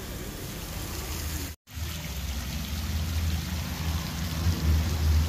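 Fountain water splashing into an ornamental garden pond: a steady rushing patter with a low rumble under it. It cuts out briefly about one and a half seconds in.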